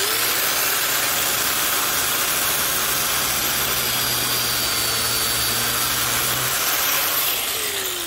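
Hitachi angle grinder with a cutoff wheel spinning up and slowly cutting through a wound steel flex drive cable held in a vise, a steady loud grinding hiss over the motor's whine. The motor is switched off and winds down near the end.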